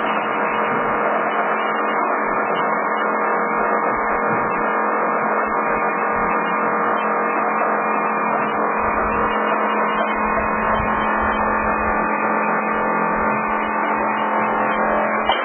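Pulian A-750-1 power crushing machine running with a steady hum.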